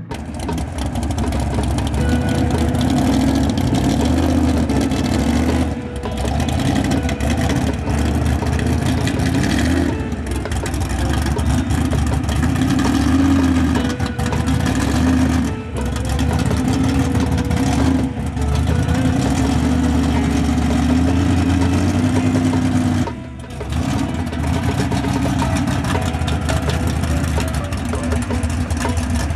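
1955 Chevy two-door post drag car's engine running at low speed and being blipped, its pitch rising and falling, as the car is driven up a ramp onto a trailer. The sound drops away briefly a few times.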